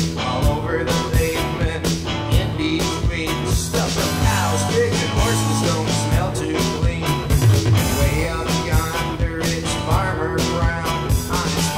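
Rock music: an instrumental passage of a home-recorded song, with guitar playing bending lead lines over bass and programmed drums.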